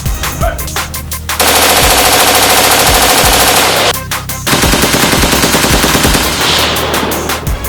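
Two long bursts of rapid automatic gunfire, the first starting a little over a second in and lasting about two and a half seconds, the second starting about four and a half seconds in and running about three seconds. Drum-and-bass music with a steady beat plays under it, heard alone at the start.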